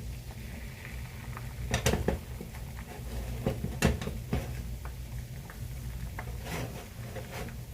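Kitchen clatter of dishes and utensils being handled: scattered knocks and clinks, the sharpest a few around two seconds and four seconds in, over a steady low hum.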